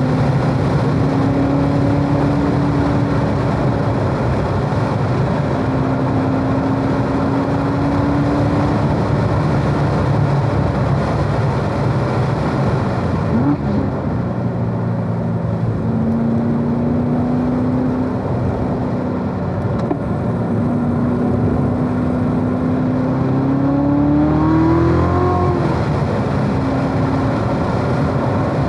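Corvette Z06's supercharged 6.2-litre V8 pulling at mid revs on track, heard from inside the car with tyre and wind noise. About 13 seconds in there is a quick throttle blip on a downshift into second gear; near the end the engine note rises under acceleration and drops as it shifts back up into third.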